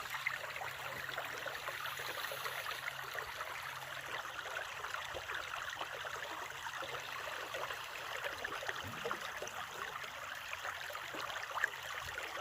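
A steady, crackly rushing noise made of many tiny clicks, holding at an even level throughout.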